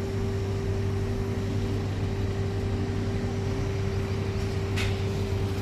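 Diesel engine of heavy lifting machinery running steadily under load with a steady whine, while a bridge girder is hoisted. A short hiss about five seconds in.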